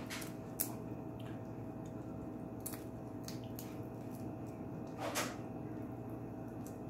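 Cooked shrimp being peeled by hand: soft, scattered clicks and crackles of shell pulling away, with one louder crackle about five seconds in.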